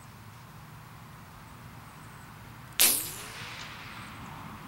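A single suppressed .22 LR shot from a Thompson Center Contender with an AAC Element suppressor, firing CCI Green Tag ammunition, about three seconds in. The bullet strikes the dirt and ricochets downrange with a whine that trails off over about a second and a half.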